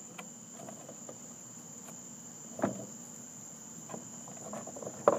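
Crickets chirping steadily, with a few knocks and clatters of charcoal being handled in a grill, the loudest about two and a half seconds in and again near the end.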